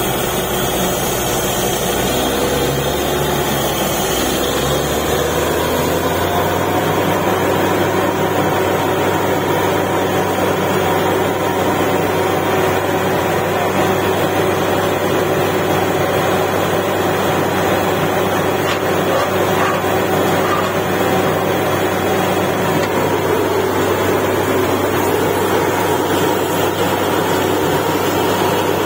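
Truck-mounted borewell drilling rig running, its engine and air compressor giving a steady loud drone. The engine note shifts over the first several seconds and then settles.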